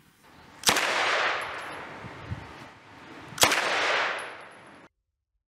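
Two loud blasts of gunfire from a Sterling submachine gun, about three seconds apart, each trailing off over a second or more. The sound cuts off suddenly near the end.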